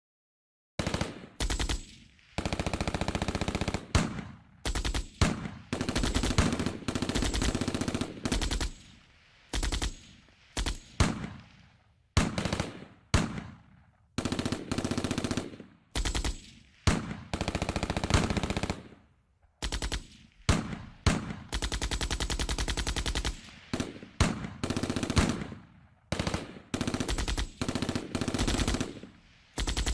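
Machine gun firing in bursts of rapid, evenly spaced shots, some short and some lasting two or three seconds, each followed by a brief echoing tail before the next burst.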